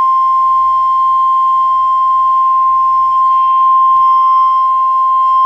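NOAA Weather Radio warning alarm tone: one loud, steady single-pitch tone near 1,050 Hz, held without a break. It signals that a warning message is about to be broadcast.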